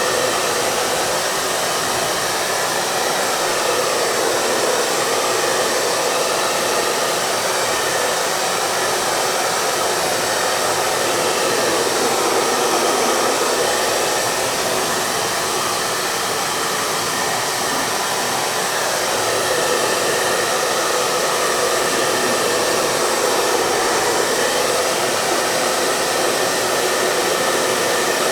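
Electric hair dryer running continuously at a steady speed: an even rushing of blown air over the motor's hum, with no change in pitch or level.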